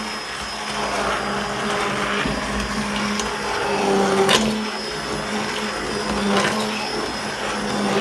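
Stick blender running on low speed, its motor humming steadily as it purées chunky stewed tomatoes in a stainless steel pot, with a sharp click about four seconds in.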